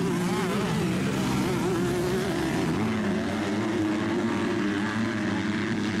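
Motocross dirt bike engines racing on a dirt track. Several engines buzz at once, their pitch rising and falling as the riders work the throttle through the turns.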